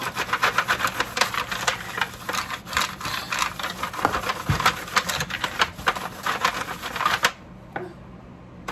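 Pastry brush scrubbing olive oil over a disposable aluminium foil roasting pan, the thin foil crinkling and clicking rapidly under the strokes. It stops about seven seconds in.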